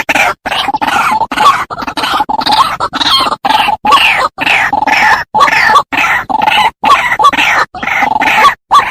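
White-breasted waterhen giving its loud, harsh croaking call, a rapid string of notes about two a second, broken by abrupt short gaps as in an edited recording.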